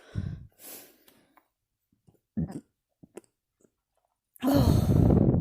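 A man burping with his mouth closed: two short burps, then one long, loud burp lasting about a second near the end.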